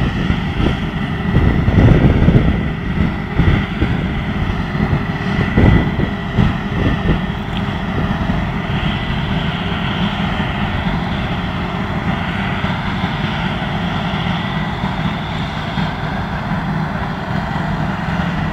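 Claas Jaguar 840 self-propelled forage harvester and its trailing truck working steadily: a constant engine drone with a steady high whine on top. Gusts of wind buffet the microphone in the first few seconds.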